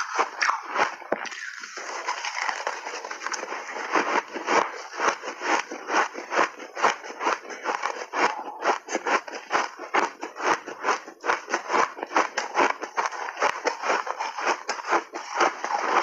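Refrozen shaved ice crunched between the teeth in big bites: a fast, irregular run of crisp crunches, a little softer for the first couple of seconds.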